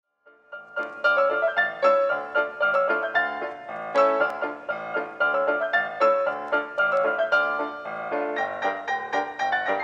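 Background piano music, a rapid run of struck notes, starting about half a second in.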